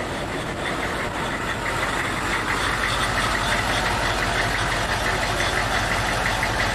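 A heavy engine or machine running steadily, with a fast, even mechanical ticking over a loud rushing noise; it grows a little louder about a second in.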